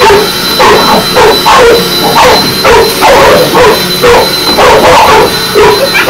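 Pit bull barking over and over at an upright vacuum cleaner, about two loud barks a second, as if attacking it.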